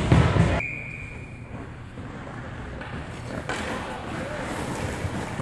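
Indoor ice rink ambience: echoing voices of players and spectators, with a loud burst of noise at the very start and a short high steady tone about a second in.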